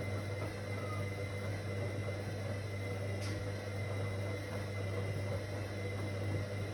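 Whirlpool AWOC 8283 washing machine running steadily: an even motor hum with a faint high whine, and a single light tick about three seconds in.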